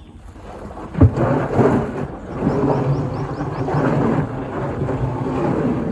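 Wild elephant giving a loud, rough roar that starts sharply about a second in and runs on for several seconds.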